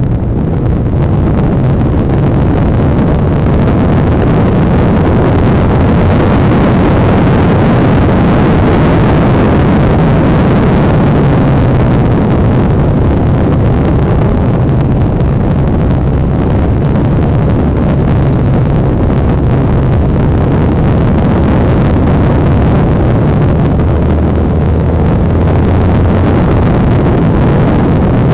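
Honda NX650 Dominator's air-cooled single-cylinder four-stroke engine pulling steadily on the move, its pitch shifting a little with throttle, with rushing wind and road noise on the onboard microphone.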